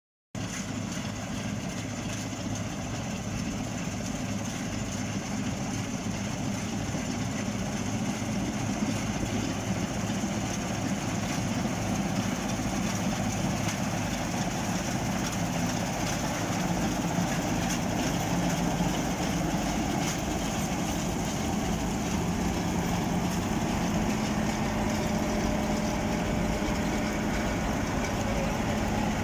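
Bizon Z056 combine harvester working in a grain field: its six-cylinder diesel engine and threshing machinery run steadily under load, getting a little louder as it comes closer.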